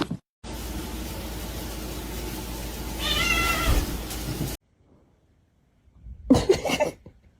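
A cat meows once, a wavering call about three seconds in, over a steady background hiss. The sound cuts off, and a couple of seconds later there is a short burst of sharp noises and another brief call.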